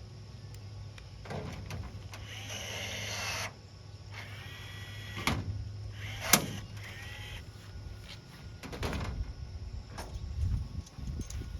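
Hand work on a dirt-track race car's body while body clips are fitted: a scattering of sharp knocks and clicks, the loudest about six seconds in, with a short rattling scrape about two and a half seconds in, over a steady low hum.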